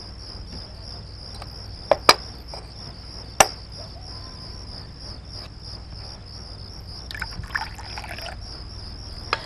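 Crickets chirping in a steady, fast-pulsing trill, with a few sharp knocks about two and three and a half seconds in.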